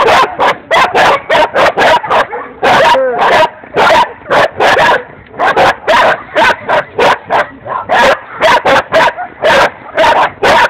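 A dog barking over and over, about three loud barks a second with only brief pauses.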